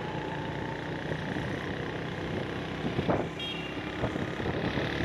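Steady running noise of a vehicle driving along a street, heard from on board, with a brief faint high beep about three and a half seconds in.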